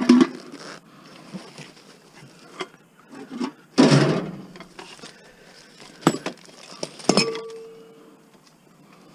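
Scrap metal being handled: scattered clanks and scrapes as pieces are picked up and moved, with one metal knock about seven seconds in that rings briefly.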